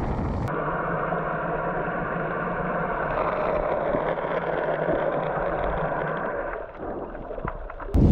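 Muffled underwater sound picked up by a camera below the surface: a steady low hum with faint water movement. It starts abruptly about half a second in, replacing wind buffeting the microphone, grows quieter near the end, and loud wind buffeting cuts back in at the very end.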